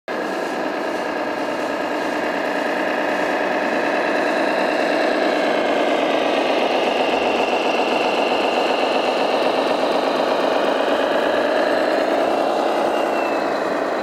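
Radio-controlled scale model truck running: a steady whir of small motors and gears whose pitch drifts gently up and down.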